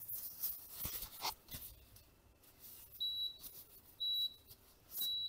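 AMC Audiotherm on the pot lid beeping: short, high, steady beeps about once a second, starting about three seconds in, the signal that the set cooking time is up. Before them, a few soft rustles and clicks.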